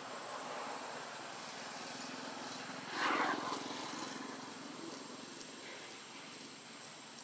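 Outdoor background with the steady low hum of a distant engine, and a short, louder burst of noise about three seconds in.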